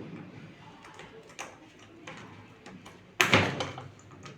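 A single loud knock or bang about three seconds in, amid fainter clicks and handling noises.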